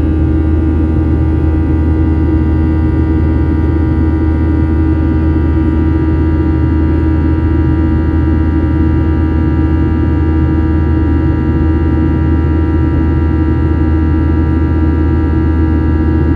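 The CFM56 turbofan engines of a Boeing 737-800 at climb power, heard from inside the cabin. A steady, loud drone with a deep hum and several held whining tones from the engines.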